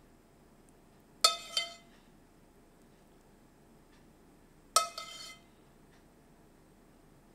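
A spoon clinking against a ceramic plate: two sharp, ringing clinks about three and a half seconds apart, the first followed closely by a lighter tap.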